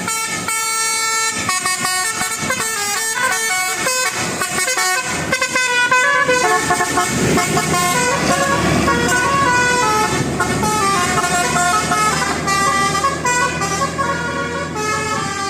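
Bus telolet horn of the Basuri type, a set of musical air horns playing a fast tune of quickly changing notes. A broader rushing noise joins underneath from about six seconds in.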